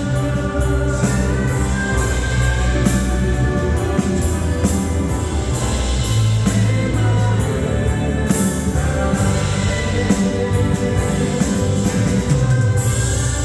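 Worship song played by a band, with singing over a steady drum beat.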